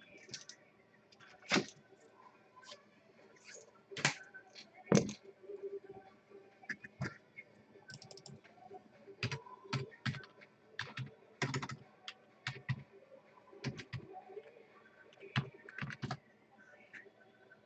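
Typing on a computer keyboard: irregular clicks and taps in short runs with pauses, a few keystrokes louder than the rest.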